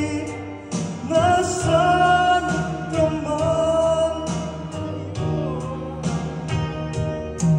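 A man singing a Tagalog love ballad into a microphone over backing music, with long held notes and a steady beat.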